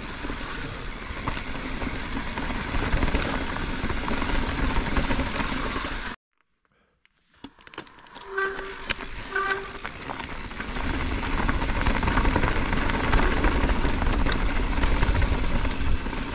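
Mountain bike descending a dirt and gravel trail: wind rushing over the camera microphone and the tyres rolling and rattling over the ground. About six seconds in the sound cuts out for a moment, then comes back quieter with two short squeaks and builds again as speed picks up.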